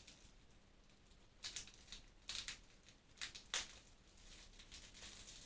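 A few faint, short rustles and light clicks as a small plastic figure and its wrapping are handled and set down, about four in the middle few seconds.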